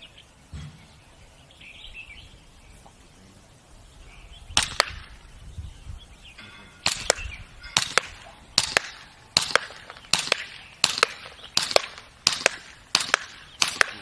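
VX7 green-gas airsoft pistol firing single sharp shots: one about four and a half seconds in, then a steady string of shots every second or less from about seven seconds on. There is low wind rumble on the microphone between the shots.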